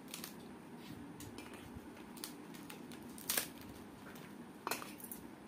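A crisp papad cracking and crackling as it is broken up by hand: a run of small crackles with two louder snaps, about three and a half and four and a half seconds in.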